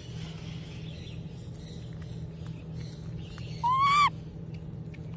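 A baby macaque gives one short, slightly rising coo, about half a second long, a little past the middle. Faint clicks and smacks of eating noodles sit under a steady low hum.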